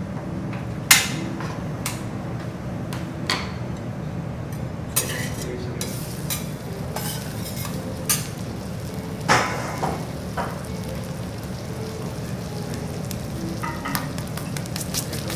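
Rice sizzling on a hot steel teppanyaki griddle, broken by sharp metal clicks and knocks of utensils and plates on the steel, the loudest about a second in, over a steady low hum.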